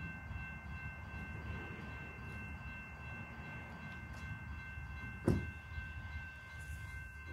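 Distant approaching freight train: a steady chord of several high notes, held without a break over a low rumble, as from a locomotive horn far off. A single sharp click about five seconds in.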